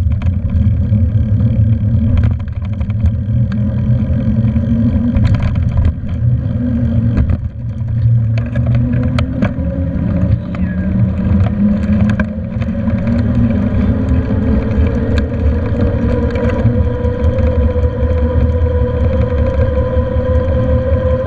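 Wind rumbling on the microphone of a handlebar-mounted camera on a moving bicycle, with scattered clicks and rattles from bumps in the path. A steady hum rises slowly in pitch over the second half.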